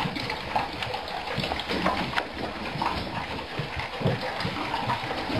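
Many dogs eating from their bowls at once: a busy, steady jumble of chewing, licking and slurping.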